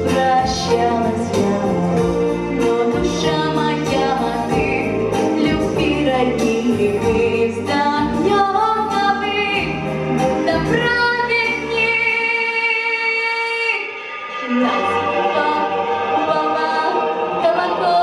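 A girl sings into a microphone over an amplified backing track, holding long notes. About twelve seconds in the bass of the accompaniment drops out under a long held high note, and after a short dip the backing comes back more lightly.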